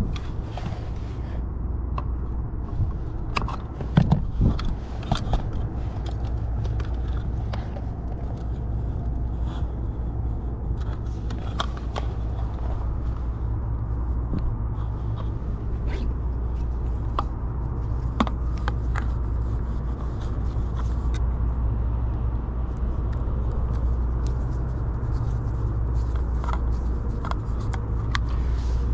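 Steady low machinery hum, with scattered clicks, knocks and scrapes of hand tools and wire being handled; the knocks are loudest about four seconds in.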